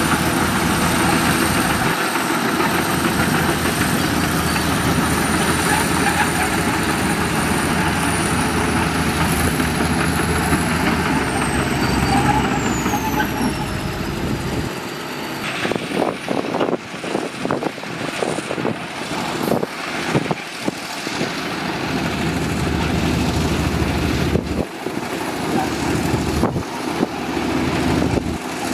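Heavy diesel earthmoving machinery running steadily. About halfway through, the deep engine sound drops away and a series of irregular knocks and clatters follows.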